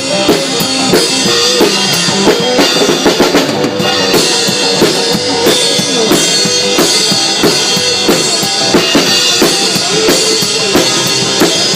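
A band playing an instrumental passage: a drum kit keeps a steady beat of kick, snare and rimshot under a bending lead melody line.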